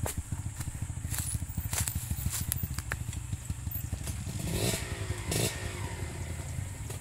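Off-road motorcycle engine running at low revs, a rapid steady chugging of firing pulses, with a short rev that rises and falls about four and a half seconds in. A few sharp clicks sound over it.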